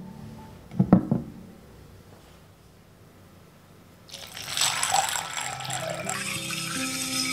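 Water poured from a glass carafe into a glass bowl of dried navy beans, a steady splashing pour that starts about four seconds in. A couple of sharp knocks come about a second in.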